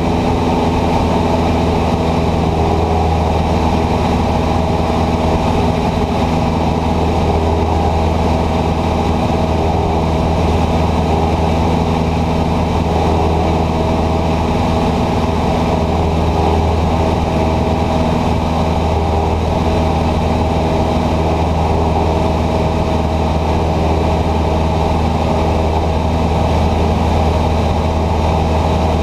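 Cessna 150's Continental O-200 four-cylinder engine and propeller droning steadily in flight, heard from inside the cockpit.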